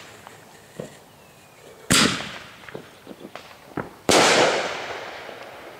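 Consumer artillery shell fired from its mortar tube: a sharp bang at launch about two seconds in, then about two seconds later the shell bursts in the air with a louder bang and a hiss that fades over a second or so.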